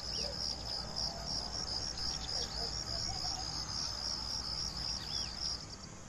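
Cricket chirping: a steady, even series of short high-pitched chirps, about three a second, that stops shortly before the end.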